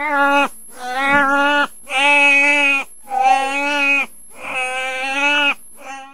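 Elephant seal calling: a run of about five long, steady-pitched calls, each about a second, with brief breaks between them.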